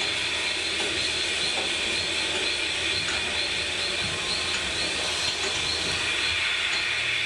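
Steady, dense hissing and screeching noise drone, with a faint regular pulsing in its high part: an electronic noise soundscape from a sound installation built out of everyday ambient noise.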